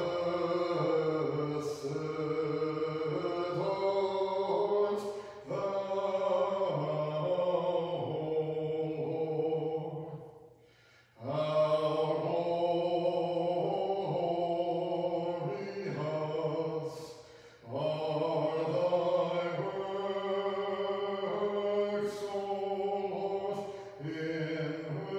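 Orthodox liturgical chant: voices singing long, held phrases on sustained pitches, with two brief breaks between phrases.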